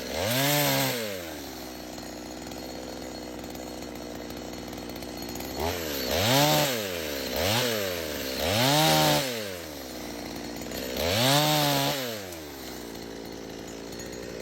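Chainsaw engine idling and being revved up and let back down to idle five times: once near the start, then four quick revs in the second half.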